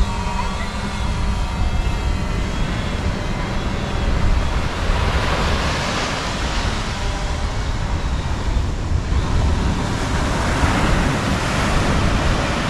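Wind buffeting the microphone over the wash of ocean surf, with waves breaking in broad swells about five seconds in and again around ten seconds.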